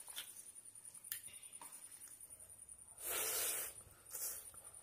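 Eating sounds of rice and curry mixed and eaten by hand from a steel plate: soft squishing with a few light ticks, then two louder hissing mouth sounds as a handful goes into the mouth. The first lasts most of a second, about three seconds in, and the second is shorter, just after four seconds.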